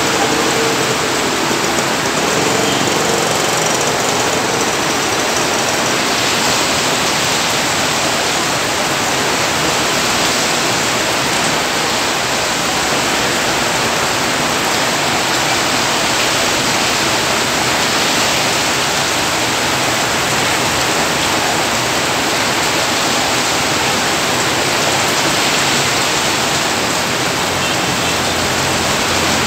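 Heavy rain pouring down as a loud, steady hiss.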